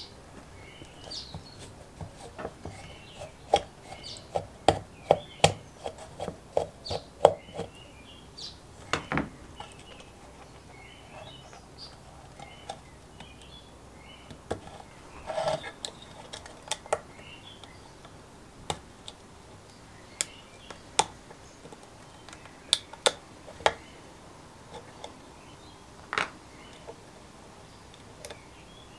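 Screwdriver and small screws clicking and tapping on the metal and plastic terminal block of a vintage Berda Snackwicher sandwich toaster as it is taken apart: a quick run of a dozen or so clicks a few seconds in, then scattered single clicks and taps.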